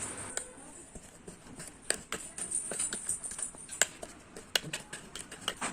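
A spoon pounding and scraping garlic, rock salt and tulsi leaves in a bowl to crush them into a paste, giving irregular sharp clinks and taps, several a second, some louder than others.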